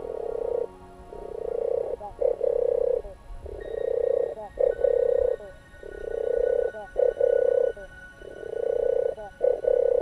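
European turtle dove singing its low, rolling purr. Each phrase is a longer purr followed by a shorter doubled one, repeated about every two and a half seconds.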